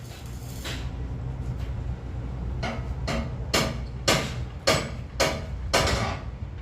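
A steady low machine hum, with a run of about seven short, loud strokes, about two a second, starting a little under halfway in.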